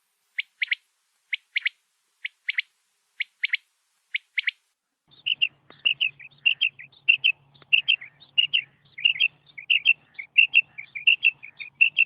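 Hen quail calling: short paired notes about once a second, then from about five seconds in a quick, continuous run of chirping notes.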